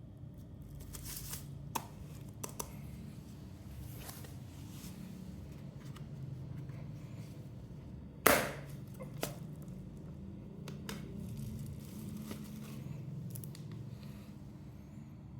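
Things being handled during an unboxing: scattered light clicks and crinkling, with one sharp knock about eight seconds in, over a steady low hum.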